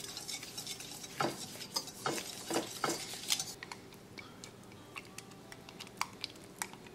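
Wire whisk stirring spices and olive oil in a glass mixing bowl, its wires clicking quickly and unevenly against the glass. The clicking thins out about three and a half seconds in, leaving a few scattered light taps.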